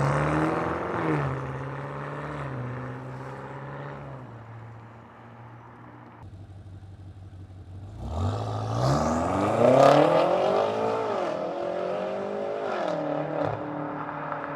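BMW F90 M5 Competition's twin-turbo V8 running through an aftermarket Remus cat-back exhaust with downpipes, under way on the road. The note eases off and fades to a low level, then about eight seconds in it climbs steeply in pitch under hard acceleration, dipping twice before climbing again.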